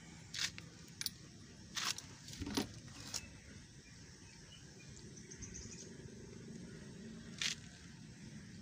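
Light metallic clinks and taps, about five in the first three seconds and one more near the end, as a spark plug just taken out of a 200cc loader rickshaw engine is handled along with the plug spanner.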